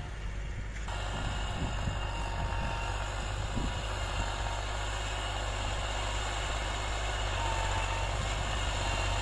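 Massey Ferguson 260 tractor's diesel engine running steadily under load while pulling a five-tine chisel plough through hard ground.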